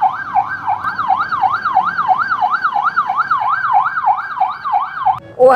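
Electronic ambulance siren wailing rapidly up and down, about two and a half sweeps a second, until it cuts off about five seconds in.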